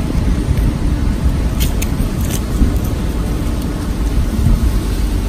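Low, uneven rumble of wind buffeting the microphone, with a few faint clicks about two seconds in.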